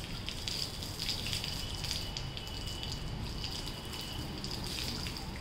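Water poured slowly from a plastic mug onto a dog's back and running off its coat.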